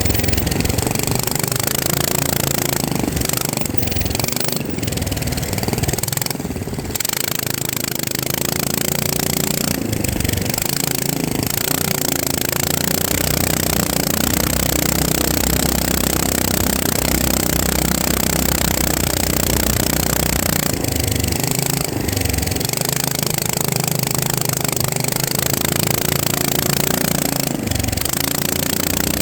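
FPV racing quadcopter's motors and propellers buzzing, the pitch shifting up and down with the throttle, under a steady hiss of rushing air.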